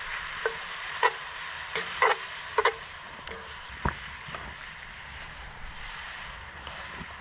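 A spoon stirring food in a cast iron pan over a fire, knocking against the pan about seven times in the first four seconds, over a steady hiss of sizzling.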